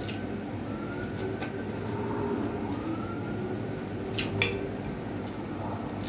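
Eating at a plate over a steady room hum: faint clicks, with two sharp clicks of a plate or utensil close together a little past the middle.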